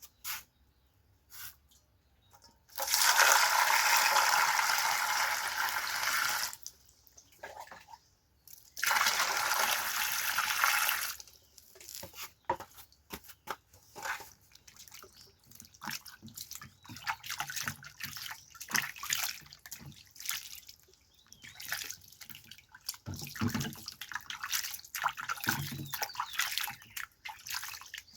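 Water running from a tap in two spells of a few seconds each, followed by irregular small splashes and drips of water being handled.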